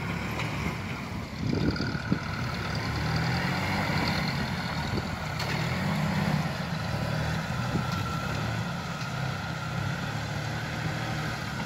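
Diesel tractor engine running at steady revs as it drives across the car park, its pitch wavering slightly, with a faint steady high whine alongside.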